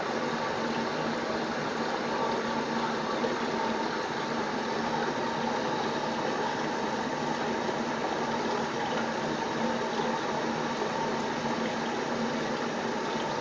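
Water running steadily from a bathtub tap into the tub.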